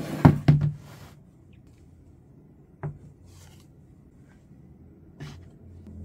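Several sharp knocks in quick succession at the start, then a single knock about three seconds in, a brief rustle and a softer knock about five seconds in: objects being handled and set down in a small room.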